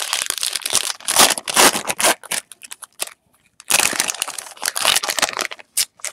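Foil trading-card pack wrapper being torn open and crumpled by hand. There are two spells of crinkling, the first about two and a half seconds long and the second shorter, with a brief pause between them and a few sharp crackles near the end.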